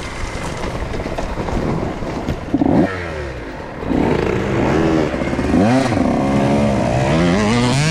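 A 125cc two-stroke dirt bike engine revs hard, its pitch climbing and dropping again and again as it is ridden on and off the throttle. About two and a half seconds in there is a brief loud clatter.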